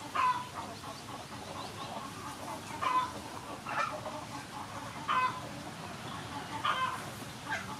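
Chickens clucking: about six short calls, roughly one every second or so.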